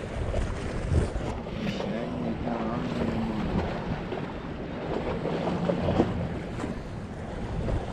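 Wind blowing across the microphone, a steady low rumble, with a faint low hum that wavers in pitch for a couple of seconds in the middle.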